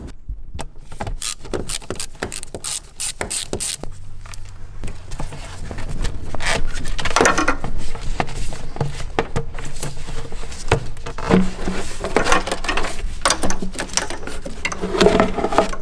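Hand work on the rubber intake boot of a BMW M54 engine. A run of sharp clicks and knocks comes first as its hose clamp is loosened. Then come bouts of rubbing and scraping as the boot is worked loose and pulled off.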